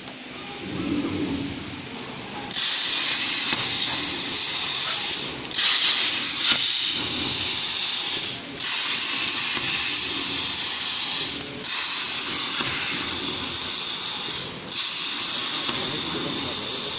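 CNC plasma cutter's torch cutting aluminium: a loud, steady hiss that starts about two and a half seconds in and breaks off for a moment four times, roughly every three seconds.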